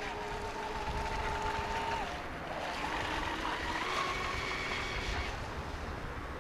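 Radio-controlled racing powerboat's motor whining at speed over the hiss of water and wind. Its pitch steps down about two seconds in, then runs higher again near the middle as the boat speeds away.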